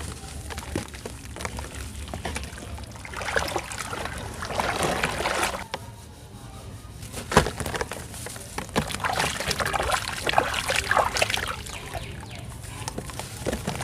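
Chunks of red sand being crumbled, the grains pouring and crackling in two long bouts, with a sharp crack about halfway through.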